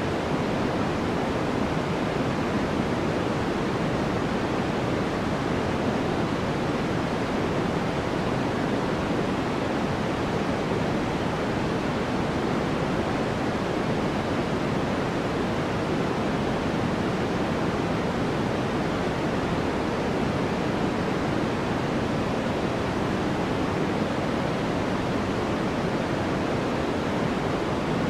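Steady white noise: an even, deep rushing hiss that never changes.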